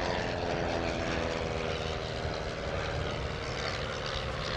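de Havilland Chipmunk's four-cylinder Gipsy Major piston engine running steadily as the propeller trainer flies past.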